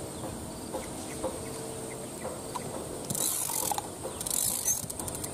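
Fishing reel being cranked to retrieve a cast line, its gears whirring and ticking in short spells starting about three seconds in.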